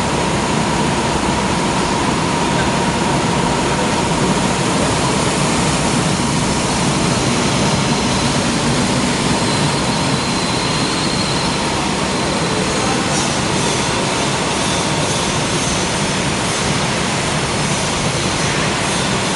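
Flexographic printing press running steadily, a loud, even mechanical noise with a faint steady whine that fades out about halfway through.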